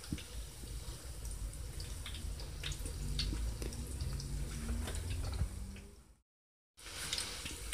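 Breaded chicken cutlets deep-frying in hot oil at medium heat: a steady soft crackle and bubbling with scattered small pops. The sound cuts out to dead silence for about half a second, six seconds in.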